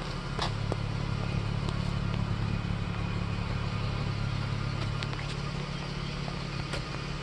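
Dodge Challenger's engine idling, a steady low hum, with a few faint ticks over it.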